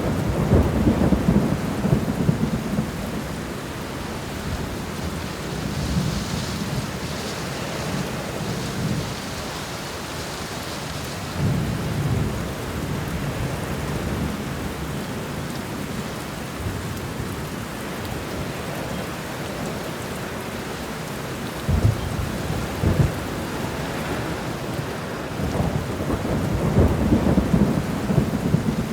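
Steady rain pattering on an apartment window, with low rolls of thunder that swell and fade several times, loudest near the start and near the end.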